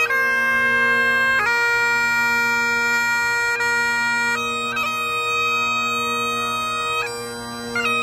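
Great Highland bagpipe playing a slow melody: a steady drone under the chanter, whose long held notes change every second or two with quick grace-note flicks between them.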